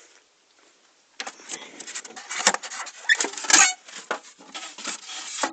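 A small glass vivarium with an aluminium-framed front being handled: a run of irregular clicks, knocks and rattles starts about a second in, with a louder clatter about three and a half seconds in.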